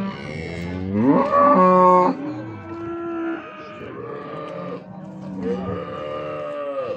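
Cattle mooing in several long calls, the loudest rising in pitch about a second in and then held for about a second, with another call near the end.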